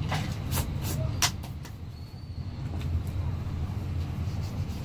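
Steady low rumble of a motor vehicle engine or road traffic, with a few short sharp scrapes or clicks, the loudest about a second in.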